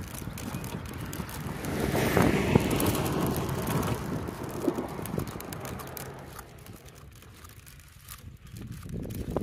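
A car passing on the road: a rushing tyre-and-engine noise that swells about two seconds in and fades away after about six seconds.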